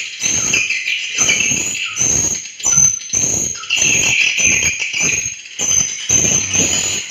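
Swiftlets calling: a dense, continuous stream of rapid, high-pitched chirps repeating several times a second.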